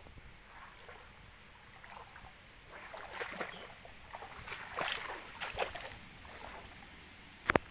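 Shallow stream water trickling with irregular small splashes, busiest in the middle. A sharp knock near the end.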